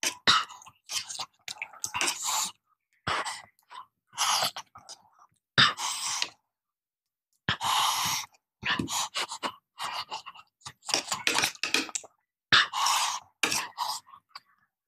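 Close-miked eating: chewing and mouth noises alongside a metal spoon scraping and clicking against the plate as khichdi is scooped up. It comes in short, irregular bursts with brief pauses.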